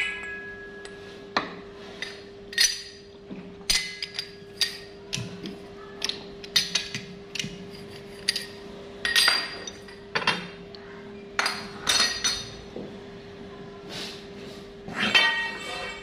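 Irregular sharp metal clinks and taps with a short ringing tail, from the steel pipe, four-jaw chuck and tools being handled at a stopped metal lathe. A steady hum runs underneath.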